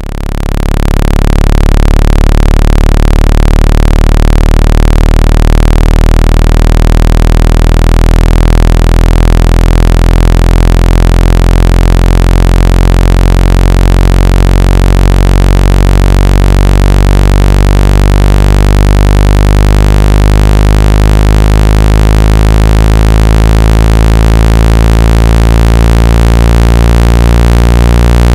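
Loud, steady low synthetic tone with many stacked overtones, fading in over about a second and a half and beating slowly. It is a water-ejection tone, played through a phone or earphone speaker to vibrate trapped water out of it.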